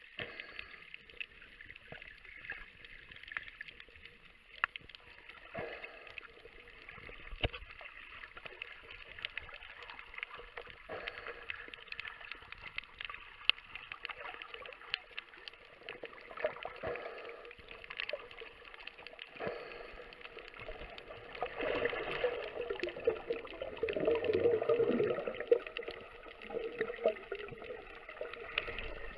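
Muffled underwater sound with scattered sharp clicks and crackles, and a louder spell of bubbling gurgle from about 21 to 26 seconds in.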